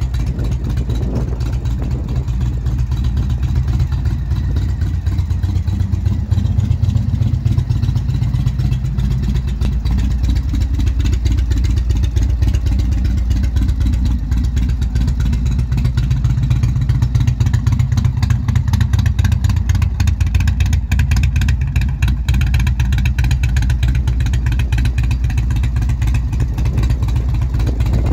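Indian Thunder Stroke 111 V-twin engine of a 2017 Chieftain Dark Horse idling steadily through aftermarket Freedom mufflers, with a deep, even exhaust note.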